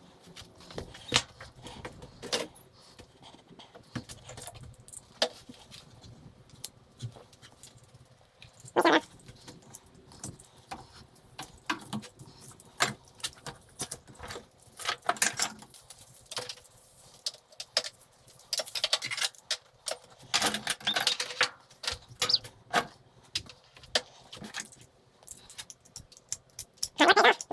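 Small pieces of brass and copper scrap clinking and jangling as they are handled and sorted, in irregular bursts of light metallic clicks.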